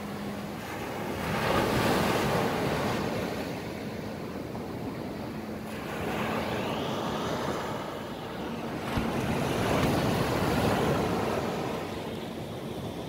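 Small waves breaking and washing up a sandy beach, swelling three times a few seconds apart, with a faint steady hum underneath.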